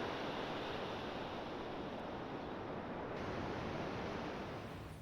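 Steady rushing outdoor nature ambience with no distinct events, like wind or running water.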